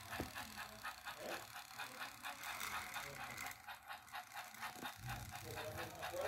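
Battery-powered toy train engines running along plastic track, their small motors and gears giving a fast, even clicking whirr.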